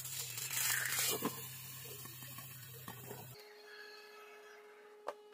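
Water poured into a hot, oiled frying pan around a frying egg, sizzling loudly with a few small pops. The sizzle cuts off suddenly about three and a half seconds in, leaving a faint steady hum and a single knock near the end.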